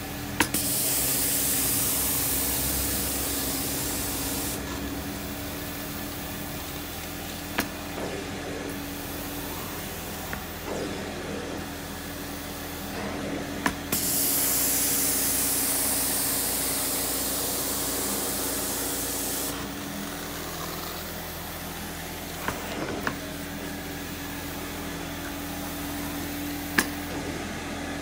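Janilink carpet extractor's vacuum motor running steadily while the wand sprays cleaning solution into the carpet in two long hissing bursts, one at the start and one about halfway through. A few sharp clicks come between them.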